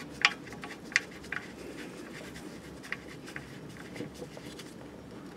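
Oil drain plug being turned back into the oil pan by gloved fingers: light scraping and a few sharp little metal clicks, the loudest about a quarter second and a second in.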